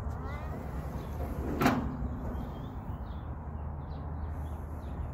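A playground glider swing in motion: a brief creak from its pivots at the start, then one sharp knock about a second and a half in, over a steady low rumble.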